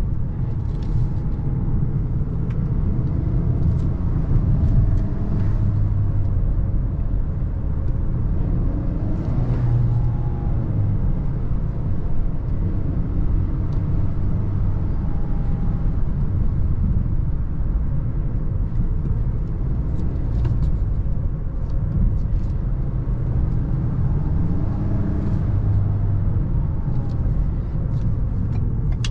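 Ford Maverick's 2.0-litre EcoBoost turbocharged four-cylinder pulling the pickup along with steady road rumble, its engine note rising and falling a few times.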